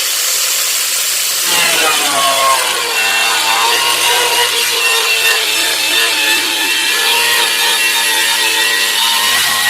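Handheld tile-cutting grinder with a ceramic cutting disc running and cutting through plywood: a steady high motor whine mixed with cutting noise. The whine drops slightly in pitch about a second and a half in, as the disc takes the load of the wood, then holds steady.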